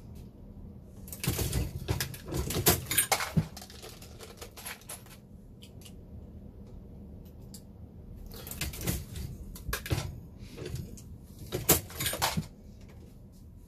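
Dillon Square Deal progressive reloading press being worked by hand: two bouts of metallic clicking and clattering, the first about a second in and the second about eight seconds in.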